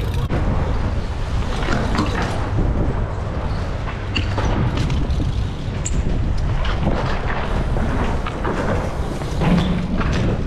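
A BMX bike ridden on concrete: a steady low rolling rumble with scattered knocks and clatters of the bike and pegs hitting the ground.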